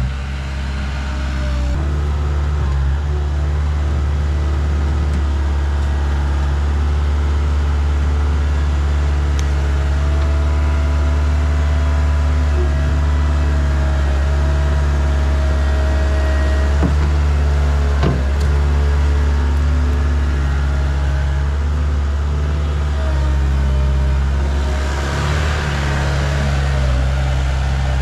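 Diesel skid steer engine running steadily under work, with a higher whine over the low engine note. About 25 seconds in there is a brief rush of noise.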